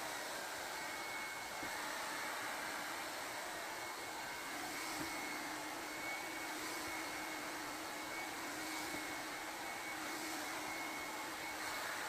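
2-in-1 hot-air brush hair dryer running steadily, a constant rush of blown air with a faint high whine from its fan motor.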